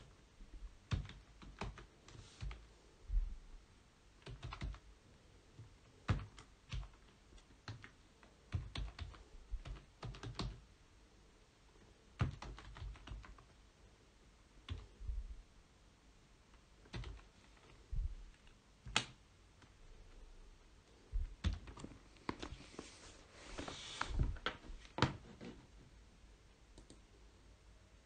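Computer keyboard typing in irregular short runs of keystrokes, with pauses between the runs.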